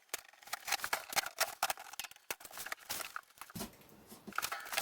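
Rapid, irregular clicks and rustles of a boxed comic book rack being unpacked and handled.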